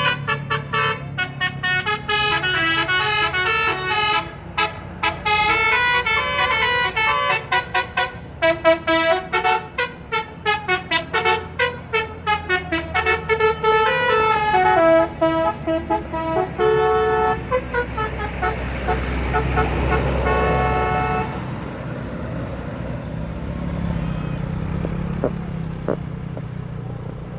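A bus's basuri horn, a multi-note musical air horn, playing a tune of short and held notes that step up and down in pitch. The tune stops about 21 seconds in, leaving the low running of the engine.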